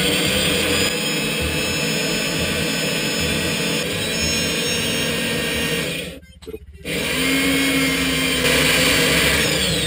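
Electric drill mounted in a drill stand, running and boring a large hole into a block of extruded polystyrene (XPS) foam. It runs steadily with a whine, cuts out for a moment about six seconds in, then runs again.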